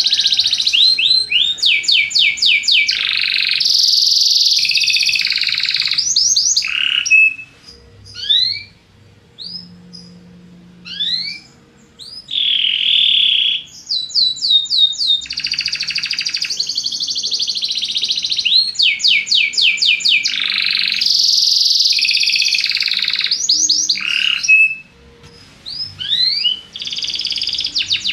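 Belgian canary singing: long, fast trills of rapidly repeated rising notes and rolling phrases, broken about a third of the way in by a few seconds of scattered single chirps before the full song resumes.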